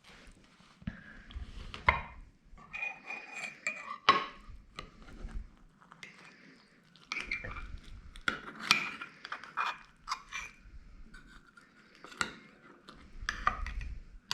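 A fork or spoon clinking and scraping against dishes in a run of irregular knocks and scrapes. A few of the clinks ring briefly.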